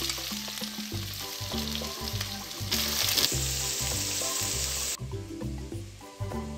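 Sliced onions sizzling in hot oil in a kadhai, stirred with a metal spatula. The sizzle swells briefly about three seconds in, then drops away abruptly about five seconds in. Background music with a steady beat plays underneath.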